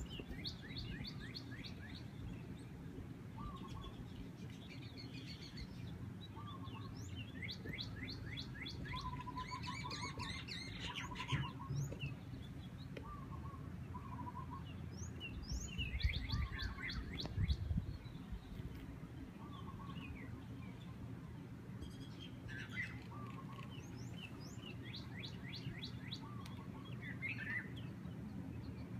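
Several small birds chirping, with quick trills of sharp falling notes and shorter, lower chirps in between, over a steady low rush of wind on the microphone that swells for a couple of seconds past the middle.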